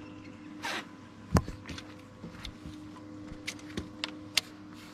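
Knocks and taps on an aluminium boat deck as a landed smallmouth bass is handled and picked up: one sharp knock about a second and a half in, then several lighter taps, over a faint steady hum.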